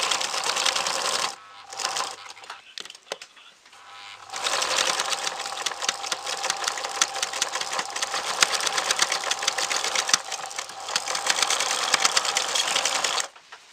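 Electric sewing machine stitching through fabric, a fast even needle clatter over its motor hum. It runs briefly at first, gives a couple of short bursts, then sews steadily for about nine seconds and stops just before the end.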